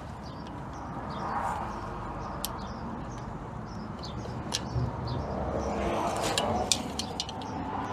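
Scattered sharp metal clicks and clinks from parts being handled on a truck's front hub assembly, busiest near the end, with birds chirping in the background.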